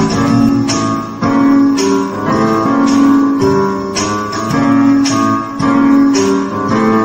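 Digital keyboard played with both hands on a guitar-like plucked-string voice. Notes and chords are struck with an accent about once a second over held lower notes.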